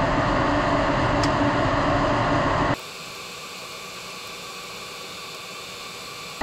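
Steady industrial machine-room noise, an even rushing hiss with a low hum under it, which drops abruptly about three seconds in to a much quieter hiss.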